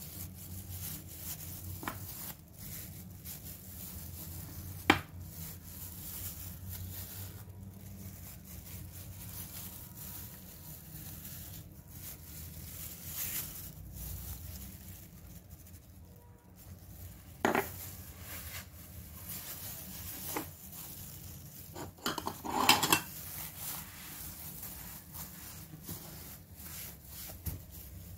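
A few scattered clinks and knocks of dishes being handled over a steady low hum: one sharp click about five seconds in, and short clattering about two-thirds of the way through.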